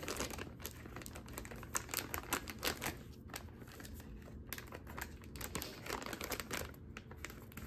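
Plastic wrapper of a pack of collagen dog chew sticks being bitten and tugged by a puppy: quiet, irregular rustling with many small clicks.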